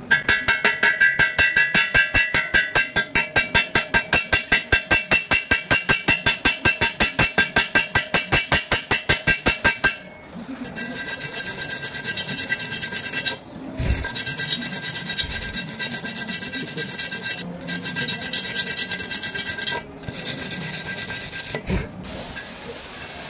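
Wire brush scrubbing slag off a fresh stick weld on steel tube. For about ten seconds it goes in even back-and-forth strokes, four or five a second, with the metal ringing. Then it turns to a quicker, steadier scrubbing broken by a few short pauses.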